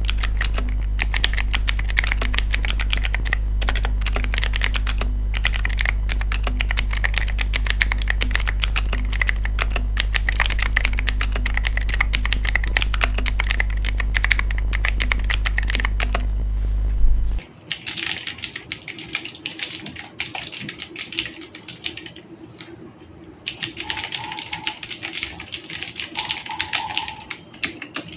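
Aula F3018 mechanical keyboard with clicky blue switches being typed on quickly in a sound test, the keyboard freshly modded to damp its hollow ring. A steady low hum runs under the typing for about the first two-thirds and cuts off suddenly, after which the typing carries on quieter, in runs with a brief pause.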